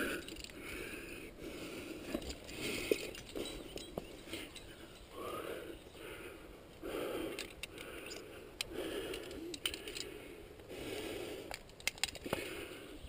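A rock climber moving up a limestone face: metal climbing gear (carabiners and quickdraws on the harness) clinks and scrapes against the rock in scattered sharp clicks. Short, regular puffs of the climber's breathing come every second or so.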